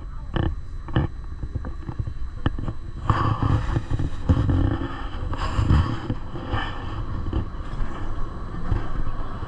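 Electric rack railway train running: a low rumble with scattered sharp clicks and knocks, the clicks most frequent in the first three seconds before the rumble thickens.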